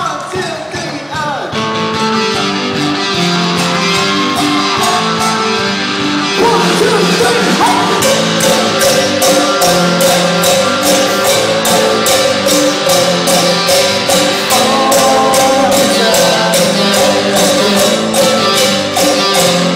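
Live rock band playing: an electric guitar line first, then about six seconds in the full band comes in louder, with a steady beat of high percussion strikes about two a second.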